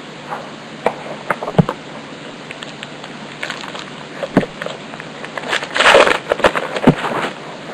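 Stiff chrome trading cards handled and flipped through by hand: a run of light clicks and taps, with a louder rustle about six seconds in.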